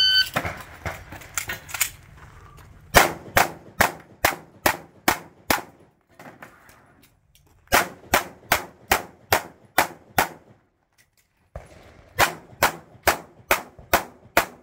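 A shot timer gives a short electronic start beep. After a few fainter cracks, a 9mm Glock 45 pistol fires three fast strings of about seven or eight shots each, roughly three shots a second, with pauses of about two seconds between strings.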